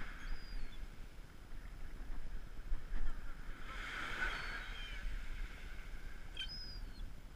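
Small waves breaking and washing up on the beach, swelling about four seconds in, with a few short high falling calls from gulls, at the start, around the middle and near the end. Wind rumbles on the microphone underneath.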